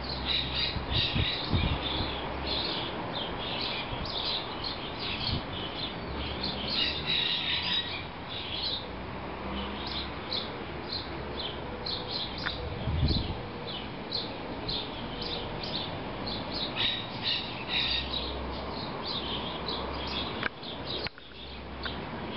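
Small birds chirping, many short high chirps in quick succession, busiest over the first several seconds and again around 17 seconds. A couple of low bumps come about a second in and around 13 seconds.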